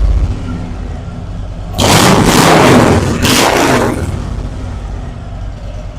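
Harley-Davidson Road King's Milwaukee-Eight V-twin idling through new Sharkroad 36-inch chrome fishtail slip-on mufflers. It is revved twice in quick succession about two seconds in, then settles back to idle.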